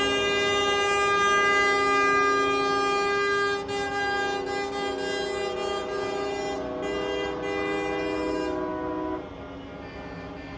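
A long, steady air-horn blast sounding several tones at once as a chord, held for about nine seconds before it stops.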